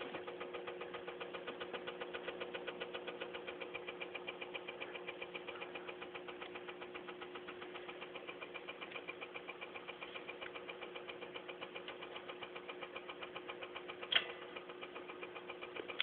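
Sears SelectaVision player running with a rapid, even mechanical ticking over a steady hum, the odd noise the machine is making. One sharper click near the end.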